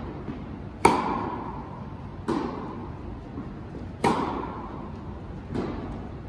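Tennis rally: a ball struck back and forth by rackets, four hits about a second and a half apart. The nearer player's hits are louder than the far player's, and each echoes briefly in the large indoor hall.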